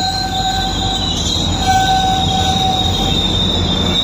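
GO Transit bilevel passenger coaches rolling past, their steel wheels squealing on the rails over a low rumble. The squeal holds several steady high pitches at once; the lowest one breaks off briefly about a second in and fades near the end.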